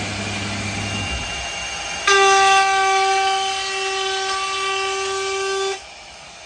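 CNC router's air-cooled spindle at 24,000 RPM with a quarter-inch upcut spiral bit. It runs with a lower hum at first. About two seconds in, it rises to a loud, steady, high-pitched whine for about three and a half seconds as the bit cuts a straight line through the wood at 400 inches per minute, then cuts off sharply as the bit leaves the board.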